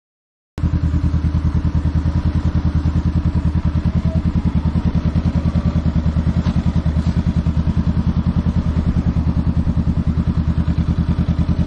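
Honda Rebel 500's parallel-twin engine idling steadily with a fast, even pulse. It comes in abruptly about half a second in and holds the same speed throughout, without revving.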